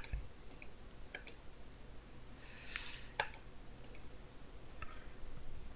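Computer mouse button clicking, a handful of sharp separate clicks with the loudest about three seconds in, as a setup wizard's buttons are clicked through.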